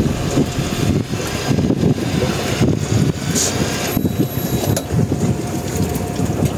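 Wind buffeting the microphone on a boat at sea, with a steady low hum underneath.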